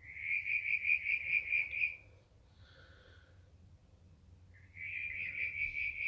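An animal's pulsed, high-pitched trill, about two seconds long, at roughly five pulses a second: once at the start and again near the end. A softer, lower call sounds in the gap between.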